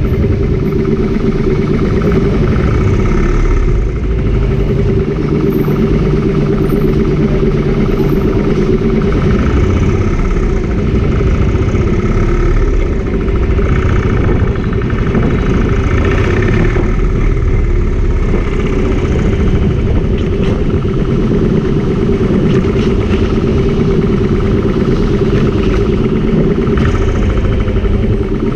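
Motorcycle engine running steadily at low speed in slow traffic, heard close up from the rider's seat.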